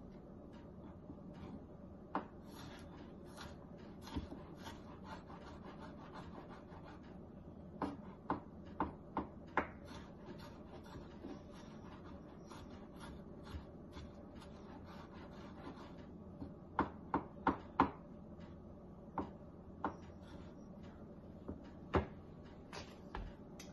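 Kitchen food-prep sounds: scattered sharp taps and clicks of utensils on a work surface, including two quick runs of about five taps each, over a steady low hum.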